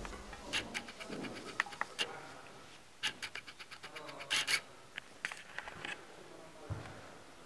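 Footsteps scuffing and crunching on a gritty floor, in irregular clusters of short scrapes about once a second.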